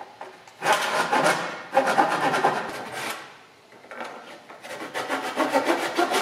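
Hand saw cutting a notch into a 2x4, fast back-and-forth strokes rasping through the wood in two spells with a short pause between them.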